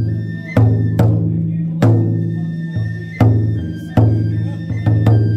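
Large taiko drum on a festival yagura float beaten with wooden sticks in a slow, uneven beat, about eight or nine strokes. Each stroke rings on low until the next.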